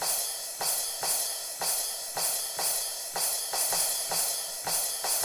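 Alesis SR-16 drum machine's sampled high crash cymbal, triggered over and over about twice a second. Each crash rings on into the next, making a continuous bright shimmer.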